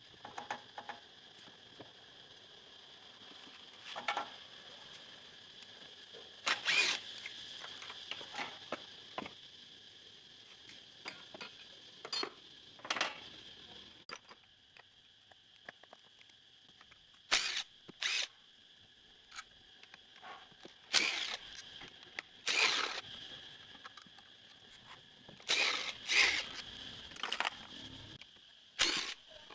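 Irregular metallic clinks and clatters of hand tools and metal parts being handled during motorbike engine repair work, over a faint steady high-pitched hum.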